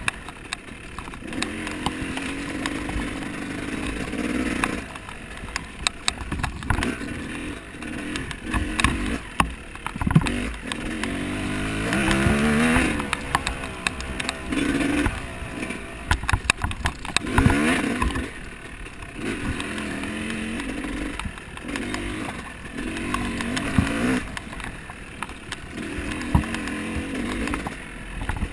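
Small off-road vehicle engine revving up and down over and over, its pitch rising and falling with the throttle, with frequent knocks and clatter throughout.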